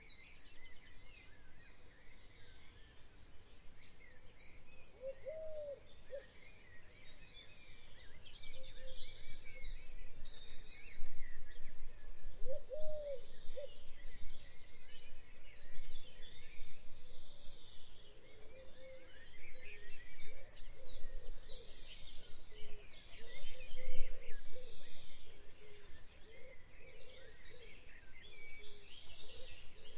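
Spring chorus of several songbirds singing over one another in rapid chirps and trills, with a steady low background rumble underneath.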